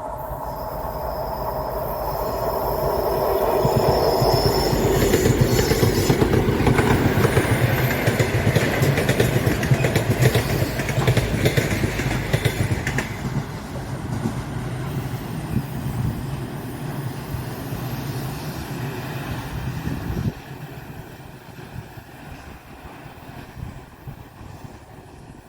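3TE10MK diesel freight locomotive passing with a small work train: the heavy diesel engine rumble and rolling wheels build to a loud peak, then drop off sharply about five seconds before the end. A thin high squeal of wheels on the curve is heard in the first few seconds.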